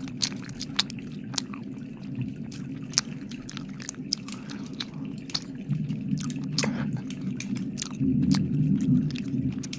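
Wet mouth sounds close to the microphone: irregular sharp licking clicks and smacks, over a low steady hum that swells near the end.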